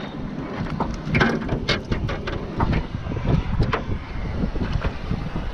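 Wind buffeting the microphone, with scattered knocks and splashes through it.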